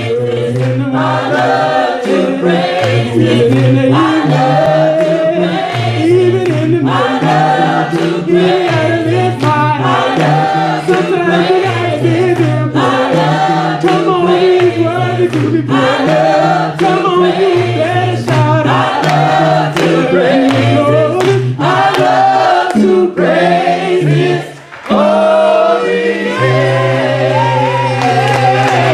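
Choir singing a gospel song a cappella, with low bass voices repeating a steady rhythmic pattern under the melody. There is a brief break about three-quarters of the way through.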